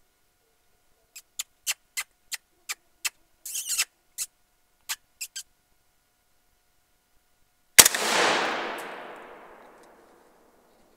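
A series of about a dozen sharp clicks, then a single loud rifle shot about eight seconds in, its report rolling away over about two seconds.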